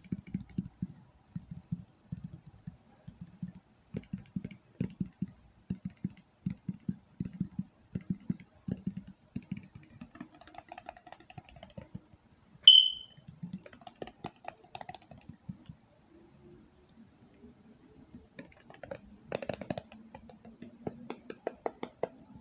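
Fingers tapping on objects in quick runs of light taps, with one sharp ringing clink a little under halfway through, the loudest sound, and a quieter spell before the tapping picks up again near the end.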